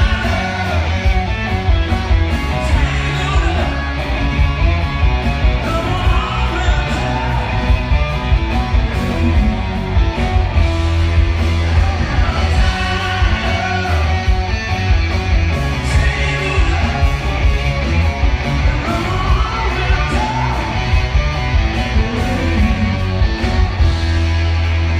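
Live rock band performance: a singer's voice over electric guitar, bass and drums, heard loud and heavy in the low end as recorded from the audience.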